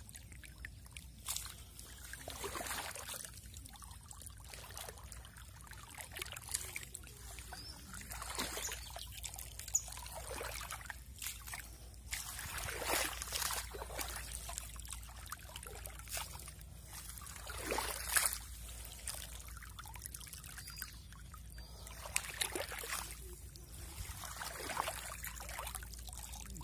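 Shallow floodwater trickling and splashing in uneven bursts a second or two apart.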